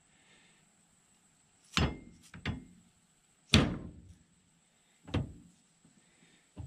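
A mallet knocking a U-joint bearing cap into the yoke of a double-cardan driveshaft: about five dull blows roughly a second apart, the loudest midway.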